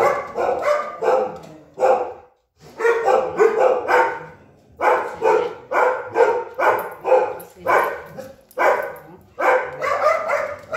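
A dog barking repeatedly in a steady run of short barks, roughly one or two a second, with a brief pause about two seconds in.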